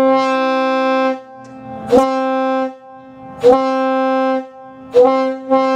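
Locomotive air horn blown in a string of blasts: one that carries on from before and cuts off about a second in, then three shorter ones, and a fifth starting near the end. Each blast opens with a brief upward scoop in pitch before settling on a steady low, reedy tone.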